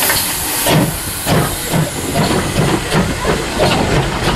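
GWR 1366 class 0-6-0 pannier tank steam locomotive starting away: a hiss of steam, then exhaust chuffs from about a second in, the beats quickening to roughly three a second.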